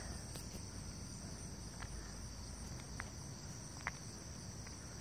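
A steady, high-pitched chorus of insects, with a few faint ticks.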